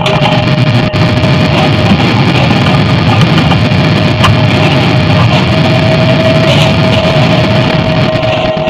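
Loud, dense electronic noise drone: a thick rumble like an idling engine, with a steady whistling tone that fades out after about two seconds and returns past the middle.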